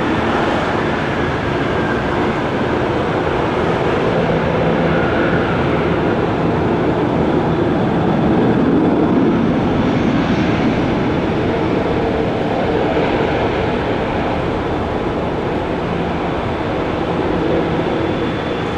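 Embraer ERJ-135 regional jet taxiing, its two Rolls-Royce AE 3007 turbofans running steadily at taxi power with a faint high whine.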